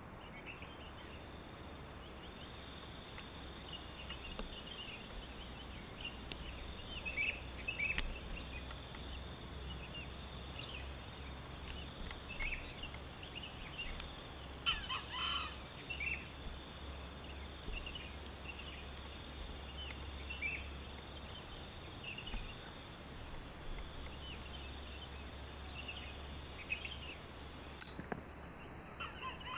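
Insects buzz in a steady, pulsing drone, with scattered short bird chirps over it. About halfway through, a louder short call stands out: a wild junglefowl rooster crowing.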